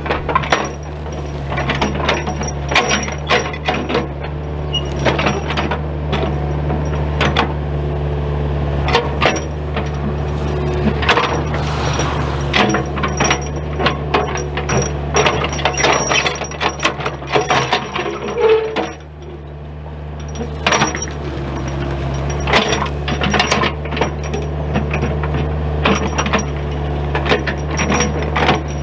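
A machine running with a steady low hum, with many irregular metallic clicks and rattles over it; the hum eases briefly about two-thirds of the way through.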